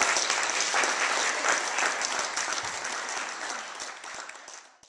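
Audience applauding, a dense patter of many hands clapping that gradually dies down toward the end and cuts off abruptly.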